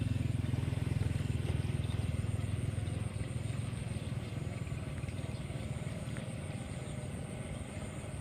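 Small engine of a rice transplanter running steadily with an even fast chugging, a little louder in the first three seconds.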